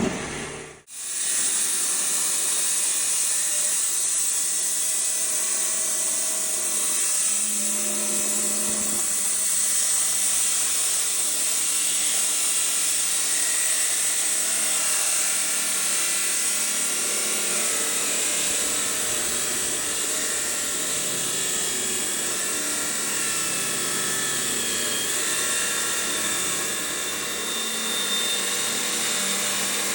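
Rock saw's diamond blade cutting steadily through a stone, a continuous high-pitched grinding hiss with a faint whine, starting about a second in.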